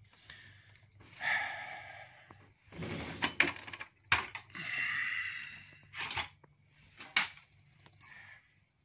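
Geared DC motor of a homemade combat-robot flipper arm whirring in three short bursts of about a second each, with a gear whine, and sharp clicks and clatter of metal parts between them.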